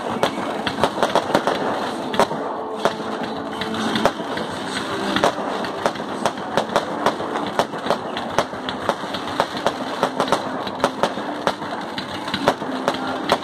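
Fireworks display firing continuously: a rapid, uneven run of sharp pops and crackles, several a second, over a steady hiss.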